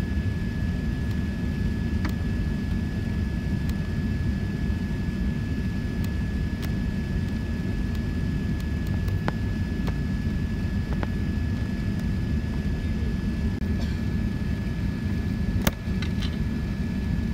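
Boeing 777 cabin noise on approach: a steady low roar of the engines and rushing air, with a thin steady high whine. A sharp click sounds near the end.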